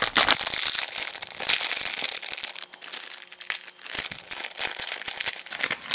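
Foil blind-bag packet crinkling and crackling as it is torn open and handled, with a quieter stretch in the middle before the rustling picks up again.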